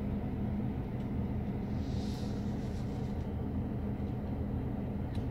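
Steady low hum inside the cabin of a Mercedes E-Class W213 with its systems running, with a faint click near the end.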